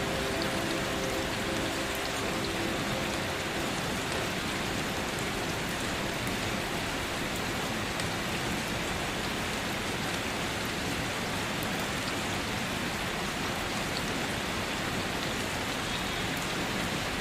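Steady rain falling: an even hiss with scattered light ticks of individual drops.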